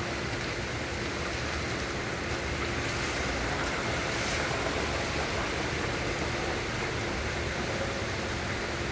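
Steady rain pouring down in a rain storm, an even hiss with no break, over a faint steady hum.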